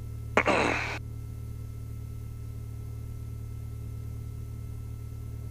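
The Lycoming IO-360 four-cylinder fuel-injected engine of a 1967 Mooney M-20F idles with a steady low drone, heard from inside the cockpit while it warms up before the run-up. About half a second in, a short loud burst of noise cuts in and falls in pitch, dying away within about half a second.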